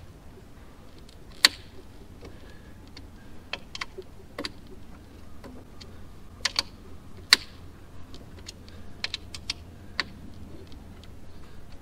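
Scattered sharp clicks and light taps of a small hex key working a seal-taped hex set screw into a fitting, blanking off an unused boost-line port. A low steady hum runs underneath.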